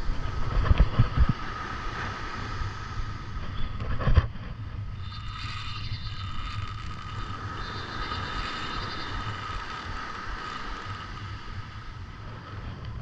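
Spinning reel being cranked, its gears giving a steady whir, over wind buffeting the microphone. A few loud knocks in the first second or so and one sharp knock about four seconds in.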